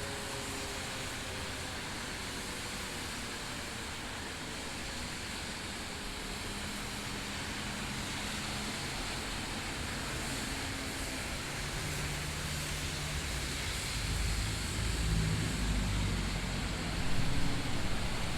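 Steady street and traffic noise with a vehicle engine growing louder near the end, while the faint tail of a Sterling M-5 outdoor warning siren winding down fades away in the first second or two.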